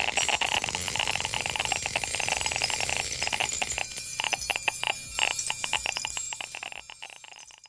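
Crackling electrical static, like a loudspeaker crackling. A dense stream of clicks over a hiss thins into separate crackles after about three seconds and fades away near the end.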